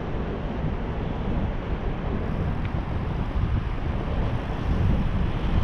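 Wind buffeting the microphone while riding a bicycle: a steady, fluttering rush, heaviest in the low end.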